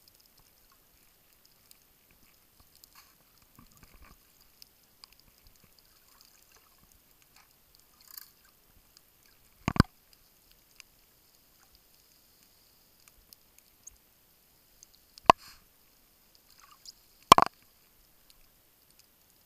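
Underwater sound picked up through a dive camera's housing: faint scattered crackling and ticks, with three sharp knocks, one about halfway through and two close together near the end.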